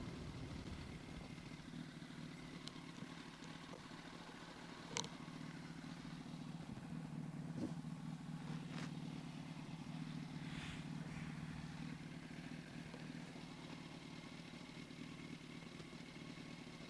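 Yamaha R1's inline-four engine idling steadily, with a few faint clicks. The rider hears a clutch noise at idle that he cannot account for.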